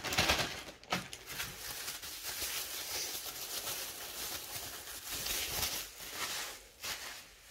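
Plastic bubble wrap crinkling and rustling as it is unwrapped by hand, with sharper crackles at the start and about a second in.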